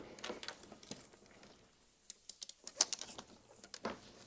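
Faint, irregular clicks and taps of plastic as a gloved hand press-fits LED light strips into a motorcycle's plastic radiator grill panel.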